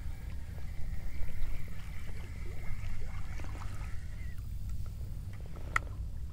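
Kayak on the water: wind rumbling on the microphone over small knocks and water sounds at the hull, with a faint steady high tone that fades about four seconds in and a sharp click near the end.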